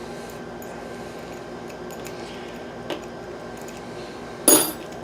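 Small metal lock parts handled while the screws are taken out of a rim cylinder lock: faint ticks and a small click, then one sharp metallic clink about four and a half seconds in.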